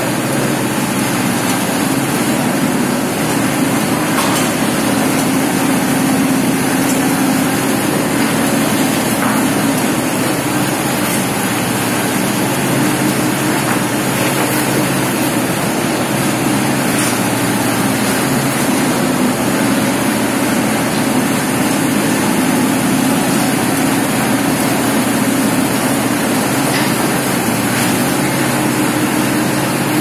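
Construction machinery engine running steadily with a constant low hum, the loudness barely changing.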